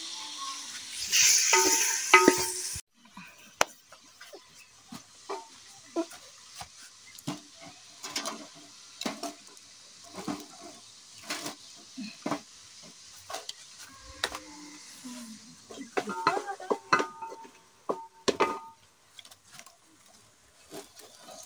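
Sticks of firewood being handled and pushed into a small metal cookstove under a pot: a scattered series of sharp knocks and clacks, busiest near the end. Before that, a few seconds of loud rustling handling noise cut off suddenly.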